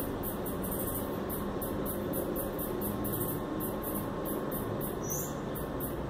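Outdoor ambience: rapid high-pitched insect chirping, about four to five pulses a second, over a steady low rumble like distant traffic.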